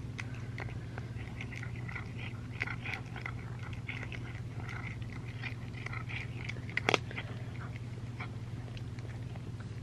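Domestic cat eating from a bowl: a run of small, quick chewing and crunching clicks, with one sharper click about seven seconds in, over a steady low hum.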